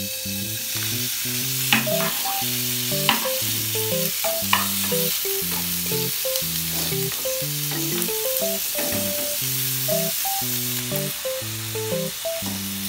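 Thin slices of raw pork sizzling steadily in a hot non-stick frying pan over a gas flame, starting as they go into the pan, while a wooden spatula stirs them with a few sharp scrapes against the pan. Background music plays throughout.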